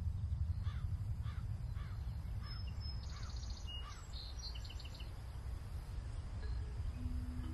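A crow cawing six times in a regular series about every half second, with higher chirps from another bird in the middle, over a steady low rumble. A low steady tone comes in near the end.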